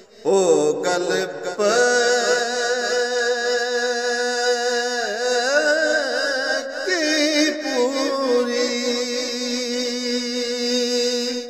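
A man singing a Punjabi Sufi kalam, holding long notes with ornamented, wavering glides between them.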